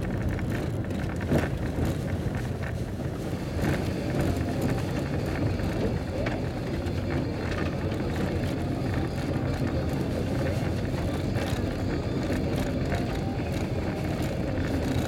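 Car driving on an unpaved gravel road, heard from inside the cabin: a steady low rumble of engine and tyres with frequent short clicks and knocks from the rough surface.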